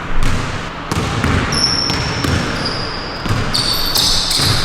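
A basketball bouncing on a hardwood court, several bounces, with high squeaks of sneaker soles on the floor starting about a third of the way in.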